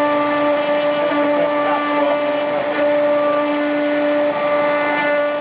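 CNC router's spindle running under load as the bit cuts, a steady high whine that briefly wavers a few times.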